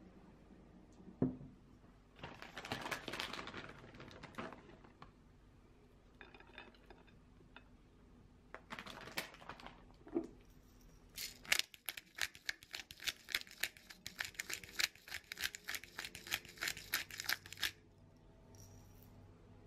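Shredded cheese being sprinkled over a plate of spaghetti, a few short spells of rustle, then a pepper mill grinding: a fast, even run of clicks, several a second, lasting about six seconds.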